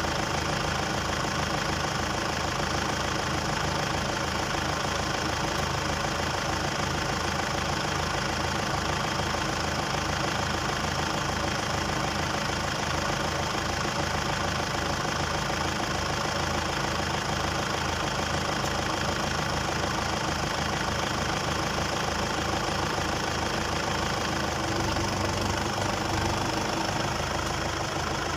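Kubota diesel tractor engine running steadily, its low note shifting slightly near the end.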